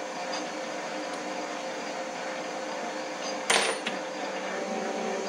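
PM-1022V bench lathe running steadily with a hum, its tool taking a cut on an aluminum wheel spacer. A brief harsh burst of noise comes about three and a half seconds in.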